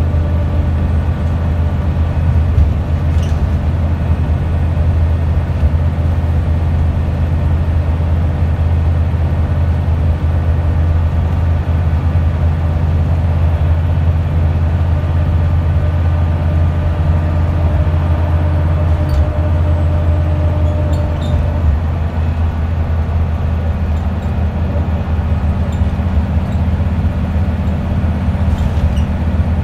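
Wright Scania Solar single-decker bus heard from inside the passenger saloon on the move: a steady low engine drone with road noise. The engine note shifts about two-thirds of the way through, and there are a few light rattles.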